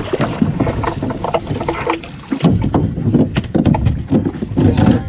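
Water splashing at the side of a small fishing boat as a hooked dogfish shark is pulled out of the sea and over the gunwale, with irregular knocks and clatters on the boat.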